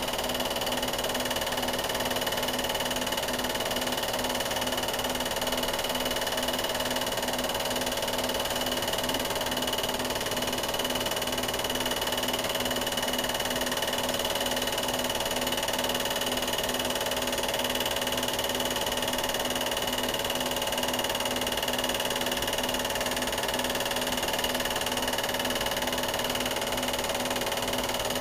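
Steady mechanical whir and hum with a fast, even pulse.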